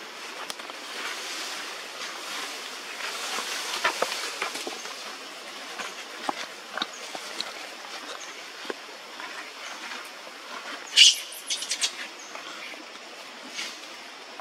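Dry leaf litter rustling and crackling as a monkey moves over the forest floor, with scattered clicks. About eleven seconds in comes a short, loud burst of high squeaks followed by a few quicker ones.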